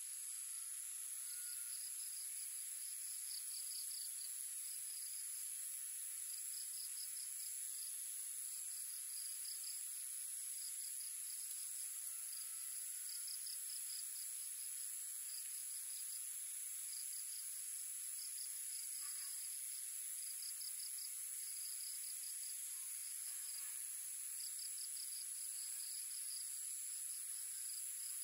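Evening insect chorus: a steady, high-pitched shrill drone, with a pulsing trill that comes and goes every second or two.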